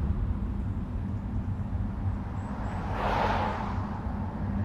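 Steady low rumble of outdoor ambience, with a brief rushing swell of noise about three seconds in.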